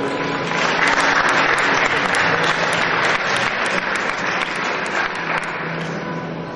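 Audience applauding, a steady dense clapping that eases slightly near the end.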